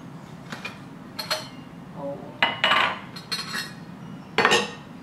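Small stainless steel toy cookware and utensils clinking and clattering as they are handled and taken out of their box, with about five short bursts of clatter, some ringing briefly.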